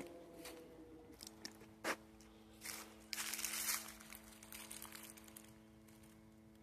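Light crunching and rustling, with scattered clicks and a louder stretch about three seconds in. A steady hum of several held tones sets in about a second in and runs under it.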